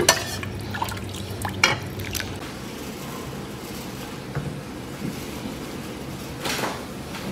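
Beef broth being poured into a small ceramic bowl: liquid splashing and trickling, with a few sharp ceramic clinks in the first two seconds.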